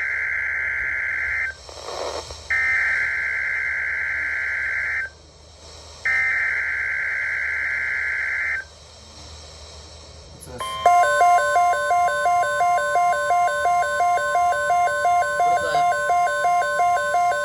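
NOAA Weather Radio Emergency Alert System signal between two alerts. It opens with three long buzzy data bursts of the SAME header, each about two and a half seconds with a short gap between. About ten seconds in, a steady attention tone starts with a rapid pulsing beep over it, running for about seven seconds.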